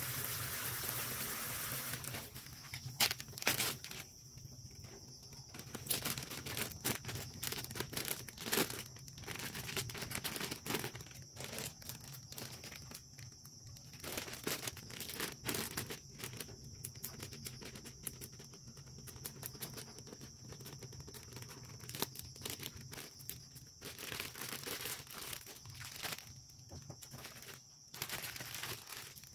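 Irregular crinkling, tearing and clicking of fish and shrimp being handled and cleaned by hand, in uneven bursts, over a faint steady high whine and low hum.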